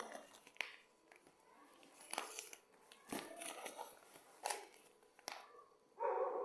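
Handling noises: a few sharp clicks and knocks with crinkling in between, and a short pitched sound near the end.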